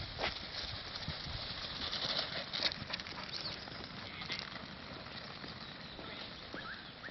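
A flock of sheep walking on an asphalt road: a dense, continuous pattering of many small hooves.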